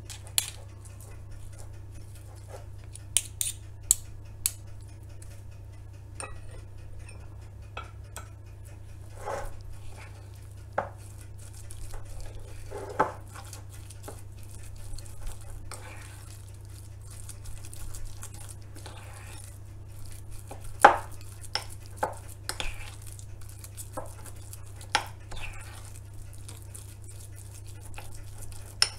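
A metal spoon stirring and scraping a thick paste sauce in a small ceramic bowl, with irregular clinks of spoon on bowl, the sharpest about 21 seconds in. A steady low hum runs underneath.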